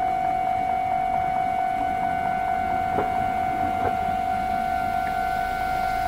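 Japanese level-crossing warning bell of a Keisei Main Line crossing ringing: a steady electronic tone sounding without a break. It is the warning that a train is approaching, with the crossing's direction arrow lit.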